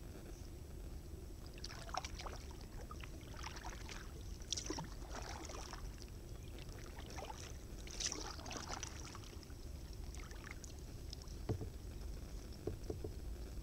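Kayak paddle strokes in icy lake water: a splash and trickle of drips every two to three seconds, with a few light knocks near the end.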